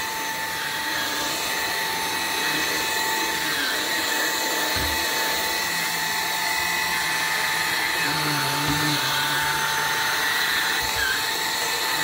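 RAYCOP cordless stick vacuum running steadily on its low setting with a constant motor whine, its floor head being pushed over carpeted stairs. Two dull knocks come about five and nine seconds in.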